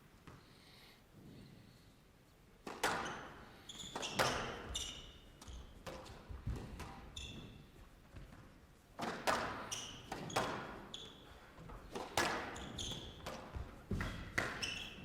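Squash rally: the ball is struck by rackets and smacks off the walls and floor in a run of sharp cracks starting about three seconds in, with players' shoes squeaking on the court floor in between.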